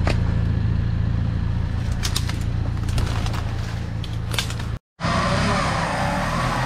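Off-road vehicle engine running steadily with a constant low hum, with a few sharp clicks over it. The sound drops out completely for a moment just under five seconds in, then the engine noise resumes with more mid-range rumble.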